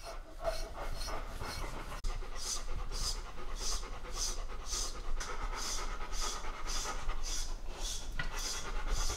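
A golden retriever, Labrador and Newfoundland mix dog panting steadily, about two breaths a second, starting about two seconds in.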